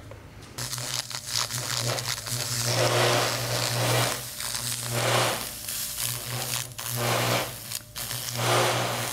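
TIG Brush electrolytic cleaning wand working on an exhaust pipe: the phosphoric-acid-soaked brush sizzles and scratches against the metal in repeated strokes, over a low buzz that starts about half a second in.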